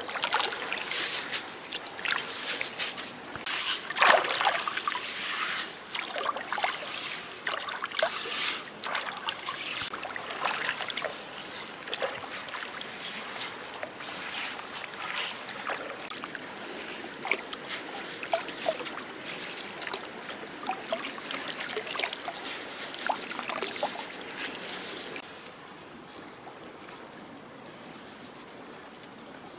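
Hands scooping and pushing wet gravel and pebbles in shallow stream water: repeated splashing with the crunch and rattle of small stones. Near the end the scooping stops and only a quieter, steady trickle of water remains.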